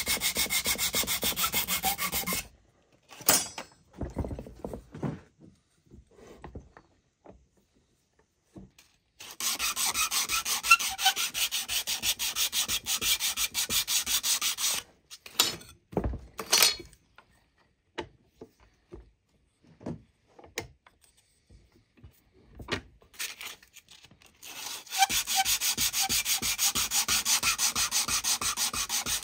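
Sandpaper rubbed back and forth over a turned wooden clothespin by hand, in quick, even strokes. The sanding runs in three spells: it stops about two seconds in, starts again around nine seconds in, and again near twenty-five seconds in. Between the spells come scattered light knocks and handling sounds.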